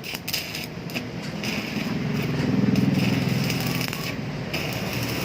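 Arc of a homemade stick welder built on a Korean welding transformer, crackling steadily as the rod burns. A low hum swells loud for about two seconds in the middle.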